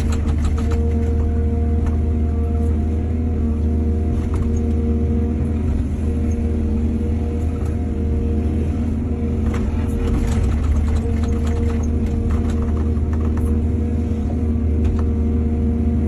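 Excavator's diesel engine running steadily with a deep hum, under scattered knocks and clatter that are thickest about ten to thirteen seconds in.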